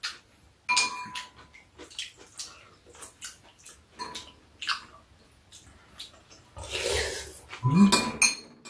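Metal spoons clicking and clinking against ceramic soup bowls, with sips and slurps of soup. Two louder slurps come about seven seconds in.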